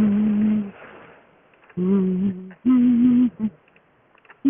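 A woman humming a tune down a telephone line, her voice pitch-altered: a held note, a pause of about a second, then three shorter notes.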